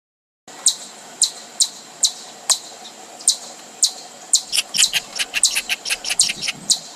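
Series of short, sharp high-pitched animal chirps over a faint steady hiss, about two a second at first, then coming faster and more crowded from about four seconds in.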